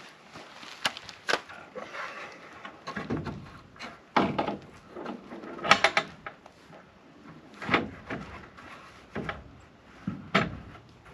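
Wooden door of glued poplar boards knocking and scraping against the coop's board siding as it is set into its opening by hand: irregular wooden knocks and bumps, the sharpest about halfway through.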